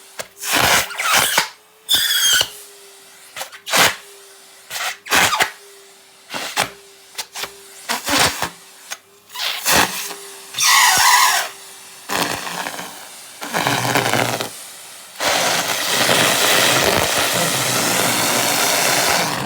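Henry vacuum cleaner struggling to swallow pieces of rubber glove: its motor hums steadily while the rubber catches in the nozzle and hose in a dozen short, loud rasping bursts, then a sustained loud rushing noise from about three quarters of the way in.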